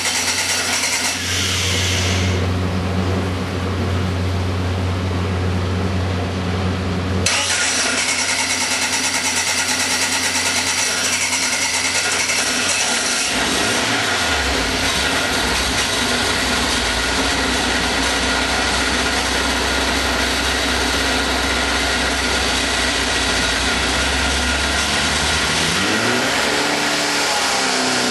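A turbocharged 1152cc Mini A-series four-cylinder engine running on an engine dyno. It holds a steady note that changes abruptly about seven seconds in and shifts again halfway through, then rises in pitch near the end as it revs up.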